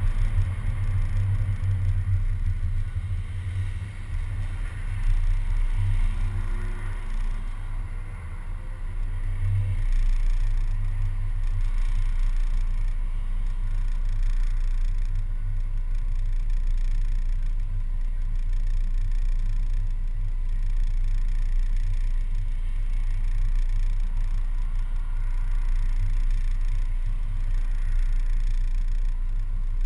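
Steady low rumble of a city bus, picked up by a camera mounted on its front, as it pulls out and then idles at a red light.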